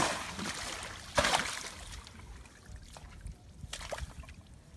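Hands scrabbling in the wet sand and mud of a fish burrow, with grass rustling. There is a short, sharp splash-like burst about a second in, then quieter scraping.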